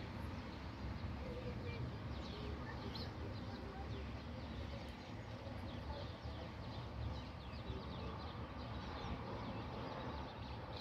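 Small birds chirping, many short quick calls, over a steady low background rumble.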